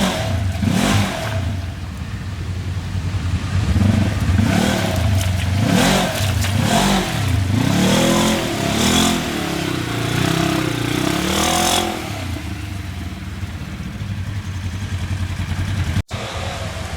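Off-road vehicle engine revving up and down over and over under load, its pitch rising and falling several times, then running steadier for the last few seconds. The sound cuts out for an instant near the end.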